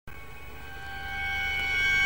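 Film score music: a high string note held steadily while the music swells louder.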